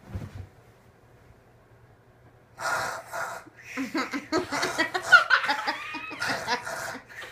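A young girl doing a vocal impression of her grandpa: a soft low thump as she drops into a leather armchair, then, after about two seconds of quiet, loud breathy noises followed by a run of exaggerated vocal sounds.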